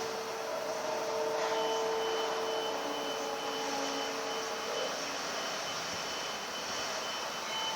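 Steady mechanical rushing drone with several high held tones over it, like a distant jet engine or a large fan. One tone drops out about five seconds in, and another starts about a second and a half in.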